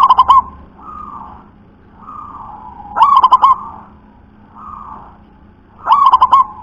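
Zebra dove (perkutut) singing its cooing song: three loud phrases of quick rolling notes about three seconds apart, with softer single coos between them.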